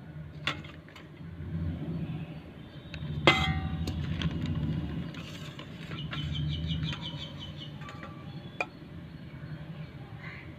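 Kitchen dishes knocking: a few sharp impacts, the loudest a ringing metal clang about three seconds in, like a steel vessel or plate being knocked or set down. A low steady hum and brief rapid trains of high pips run underneath.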